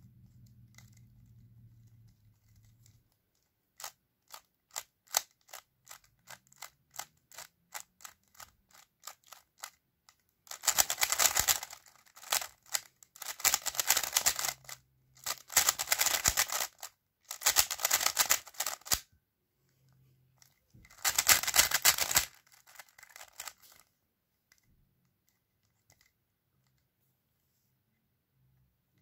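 Plastic 3x3 speedcube being turned by hand. First come separate clicking turns a few a second, then five quick bursts of rapid clattering turns, each a second or two long, as PLL algorithms are executed with finger tricks.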